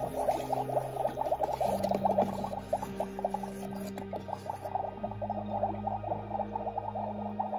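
Magic Mixies Magic Cauldron toy playing its electronic bubbling sound effect, a fast, thin crackle, over slow, low synthesizer notes that change pitch every second or two.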